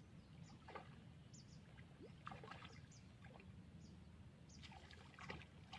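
Near silence: faint outdoor ambience with scattered soft clicks and a few short, high chirps.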